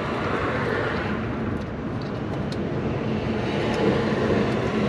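Steady machine hum and rushing noise, with a few faint light clicks.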